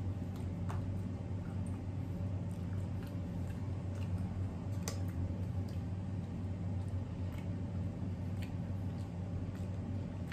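Air conditioner running with a steady low hum, with scattered short wet clicks and smacks of eating over it.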